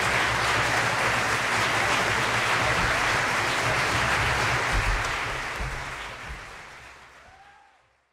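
Audience applauding, steady at first, then fading out over the last three seconds to silence.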